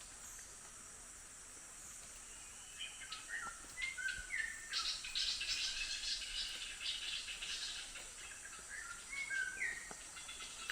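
Birds calling in lowland tropical rainforest, starting about three seconds in: short falling whistled notes mixed with rapid chattering. A steady high insect buzz runs underneath.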